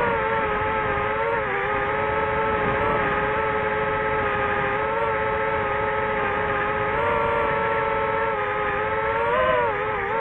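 DJI FPV drone's motors and propellers whining steadily. The pitch dips and recovers about a second and a half in, and swells and dips again near the end as the throttle changes.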